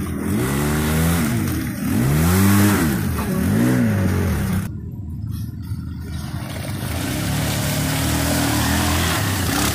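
Off-road vehicle's engine revving up and falling back three times in quick swells. About halfway through it settles into a steadier, lower run.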